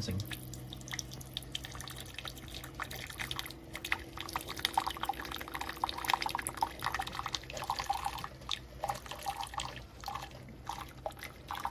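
Keurig K-Iced single-serve coffee maker running an 8-ounce water-only rinse cycle: water spatters and drips irregularly from the brew spout over a steady low hum.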